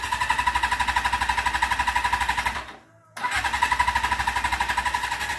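A 1980 Suzuki GS550's electric starter cranking the inline-four engine: a whining starter with a fast, even chug of compression strokes. It stops for about half a second just under three seconds in, then cranks again, and the engine does not fire.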